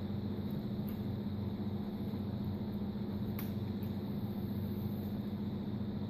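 Electric heat gun's fan running steadily with a low hum, with a couple of faint clicks.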